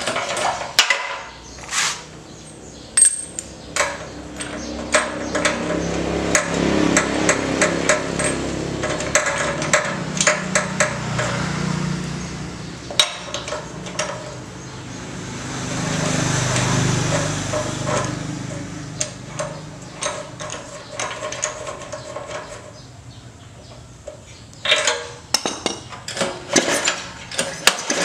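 Repeated sharp metallic taps and clinks of hand tools working on a Honda GX160 single-cylinder petrol engine. Two longer stretches of rushing noise come in between, a few seconds in and again past the middle.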